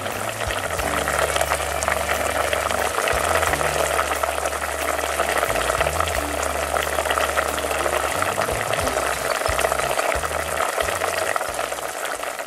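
Kakuni braising liquid bubbling vigorously around pork belly and boiled eggs in a stainless steel pot: a steady, dense popping and crackle of bubbles at a lively simmer.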